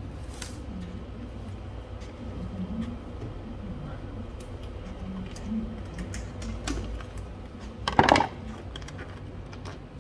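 Small plastic clicks and taps of fingers working a hose quick-connect fitting deep in an engine bay, over a steady low hum, with one louder, brief clatter about eight seconds in.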